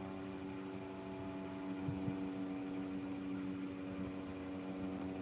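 Steady mechanical hum made of several even tones.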